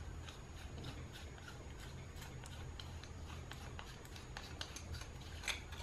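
Faint, irregular small ticks and rubbing from fingers unscrewing the threaded front section of a Yashica ML 50mm f/1.4 lens by hand, with a slightly louder click near the end.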